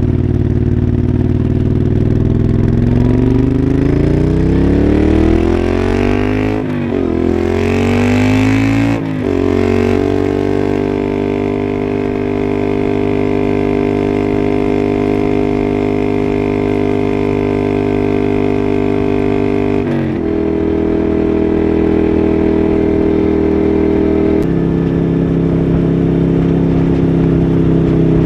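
Moto Guzzi Griso's transverse V-twin engine pulling away. Its pitch climbs, drops back at gear changes about six and a half and nine seconds in, then holds a steady cruise with one more step down in pitch later on.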